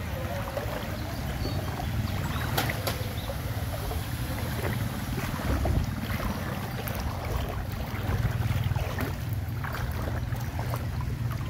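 Wind rumbling on the microphone over floodwater lapping and sloshing, with a few faint clicks.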